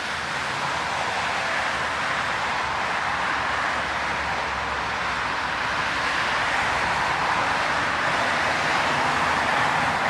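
Distant narrow-gauge steam train approaching, a steady rushing rumble that grows slowly louder.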